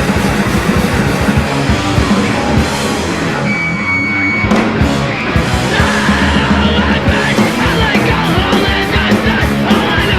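Hardcore punk band recording: loud distorted electric guitars, bass and drums playing hard. The band thins out briefly about four seconds in, and shouted vocals come in about six seconds in.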